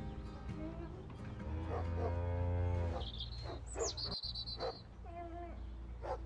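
Dairy cow mooing once, a long low call starting about a second and a half in and lasting about a second and a half.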